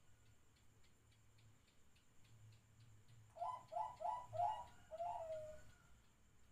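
Zebra dove (perkutut) cooing: a run of four short clipped notes, then one longer note that falls away at the end.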